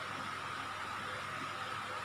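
Steady background hiss with a faint constant whine. There are no distinct events in it.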